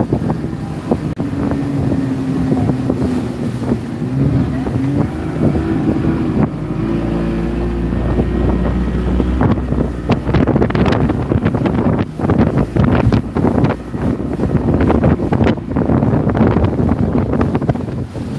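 Outboard motor driving a small open fishing boat through surf, its pitch rising about six seconds in as the throttle opens. From about ten seconds on, repeated knocks and splashes of the hull hitting the waves, with wind buffeting the microphone.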